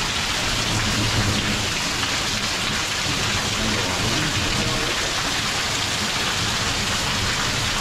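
Heavy rain pouring down in a steady, dense downpour, an even hiss of falling water with no letup.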